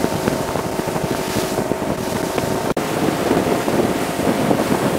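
Motorboat running at speed: steady engine drone under rushing water spray from the hull, with wind buffeting the microphone. The sound drops out for an instant about halfway through.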